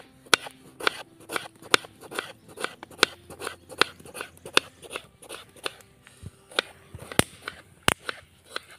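Kitchen knife slicing a tomato on a wooden cutting board, the blade knocking the board in a steady rhythm of about two to three chops a second.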